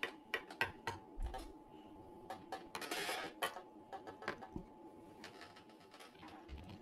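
Small plastic toys, LEGO figures and toy animals, being handled and set down on a table: scattered light clicks and taps, with a brief rustle about three seconds in.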